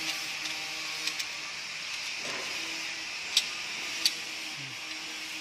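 Steel parts of a hand-worked safe-lock expansion plate mechanism clicking as its bolt bars slide in and out: a few sharp metallic clicks, the two loudest about three and four seconds in, over a steady hiss.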